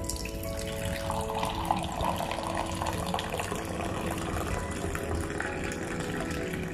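Hot milky masala tea poured in a thin stream from a height into a ceramic mug, splashing and frothing as the mug fills.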